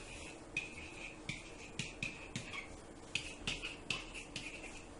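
Pen tapping and squeaking on an interactive whiteboard as figures are written: short, irregular taps, about two or three a second.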